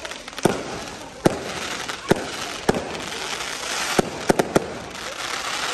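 Aerial fireworks going off: sharp bangs about once a second, with three in quick succession about four seconds in, over a continuous crackling hiss.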